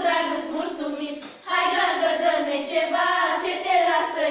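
Group of teenage girls singing a traditional Romanian Christmas carol (colind) together, unaccompanied, with a short break for breath about a second in.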